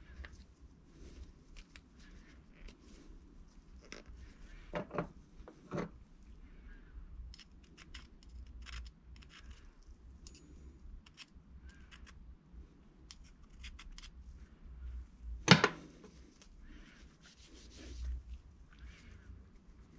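Cloth rag rubbing and small metal clicks and scrapes as Brembo brake caliper spring clips are wiped and picked at with a screwdriver. There are a couple of sharper clicks about five seconds in, and the loudest, a single sharp metal click, comes about fifteen seconds in.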